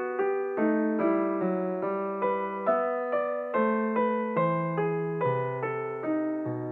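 Background solo piano music: single notes played at an even, unhurried pace of about two a second, each ringing and fading, over sustained lower notes.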